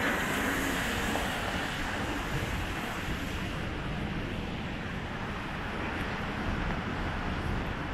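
City street traffic: a steady rumble of passing vehicles, with the higher hiss of a passing vehicle dying away about halfway through.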